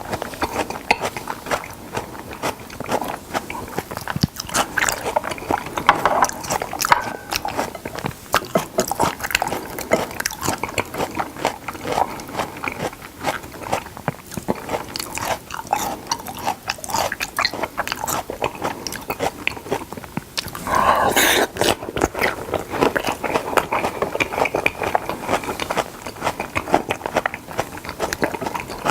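Close-miked eating of salmon: wet biting and chewing, with many small clicks throughout and a louder stretch about two-thirds of the way through.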